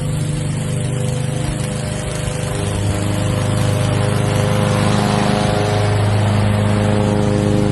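PowerSmart gas push mower's 144cc single-cylinder OHV engine running steadily, a little louder from about three seconds in.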